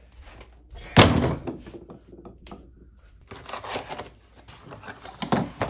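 A cardboard shipping box knocked down onto a table with a sudden thud, then hands rustling and scraping over the cardboard, with another knock near the end.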